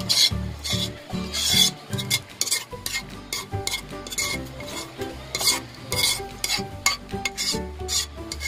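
Spoon scraping thick cream sauce out of a pan onto pasta in a skillet, in a run of irregular scraping strokes, then stirring it through the pasta.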